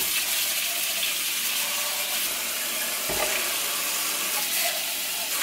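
Kitchen faucet running steadily, water pouring over canned beans in a colander in the sink, with a brief low thump about three seconds in.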